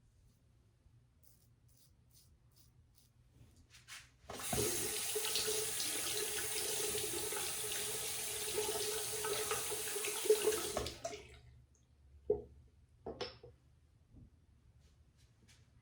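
Water tap running into a sink for about six seconds, starting about four seconds in and shutting off abruptly, followed by a few light knocks.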